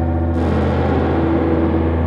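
Experimental electronic drone music: a dense wall of layered sustained tones over a deep, steady hum, with a high hiss coming in about a third of a second in.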